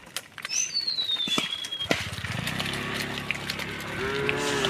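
A herd of cattle on the move, with a cow mooing that starts near the end. Earlier, one high whistle falls slowly in pitch over about a second, among scattered light clicks.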